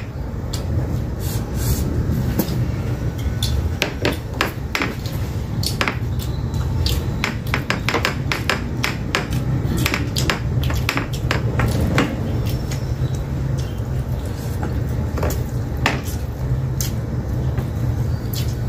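Eating sounds from two people eating rice by hand from glass bowls: frequent short, sharp clicks and smacks of chewing and of fingers and food against the bowls, over a steady low hum.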